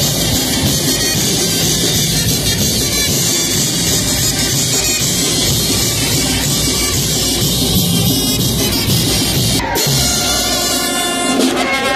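Brass band playing music for a chinelos dance, with a bass drum and hand cymbals crashing. There is a brief break about ten seconds in.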